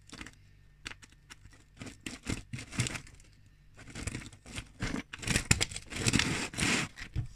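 Plastic dozer track frame being pushed back and forth over a loose rounded-link roller chain, clicking and rattling as it catches and jumps on the links instead of sliding. The clatter grows busier and louder in the second half.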